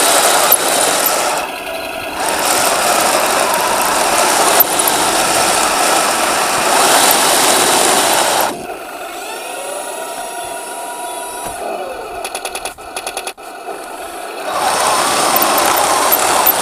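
Heng Long T-90 RC model tank running, its electric drive motors, gearboxes and plastic tracks making a loud, dense mechanical noise. About halfway through it drops to a quieter stretch with sliding tones and a brief run of rapid clicks, then the loud drive noise returns near the end.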